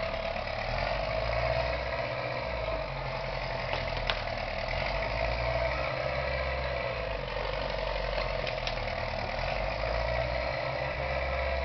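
1953 Massey Ferguson tractor engine running steadily, with one short click about four seconds in.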